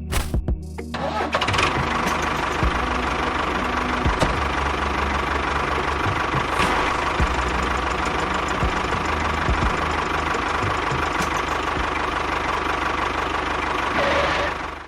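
A small engine catches about a second in and runs steadily, with a rough knocking rhythm.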